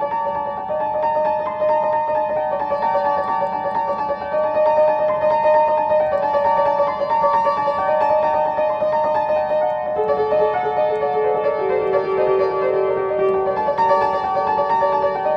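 Piano playing a flowing instrumental piece of sustained, overlapping notes; about ten seconds in a lower line of notes joins the melody.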